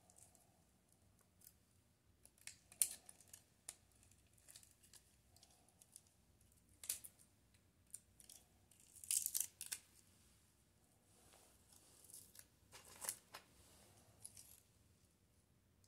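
Faint, scattered clicks and scrapes of a small screwdriver and gloved fingers working on the metal and plastic internals of a disassembled compact digital camera, coming in short clusters, the sharpest about three seconds in and again around nine and thirteen seconds.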